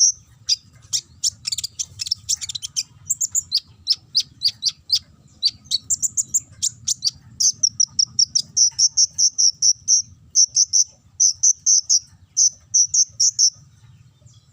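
Konin bird calling: rapid high chirps strung into fast trills in repeated bursts, stopping shortly before the end, over a faint steady low hum.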